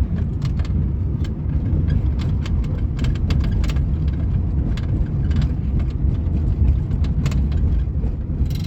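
Inside the cabin of a 1998 Suzuki Baleno on a rough road: a steady low rumble of road and engine, with frequent short, irregular rattles and knocks from behind the dashboard panel, the interior rattle the owner complains of.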